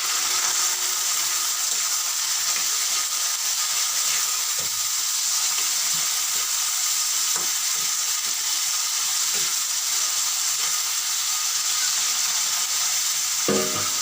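Garlic, onion and chopped fresh tomatoes sizzling steadily in hot oil in a pan as they cook down toward a tomato paste, with a few light knocks along the way.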